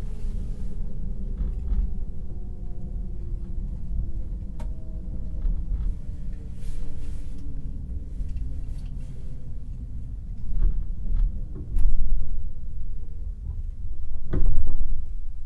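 Inside a JR 189 series electric train coach with MT54 DC traction motors: a steady low running rumble, with a faint motor and gear whine falling slowly in pitch as the train slows. Several loud clunks and knocks come in the last five seconds.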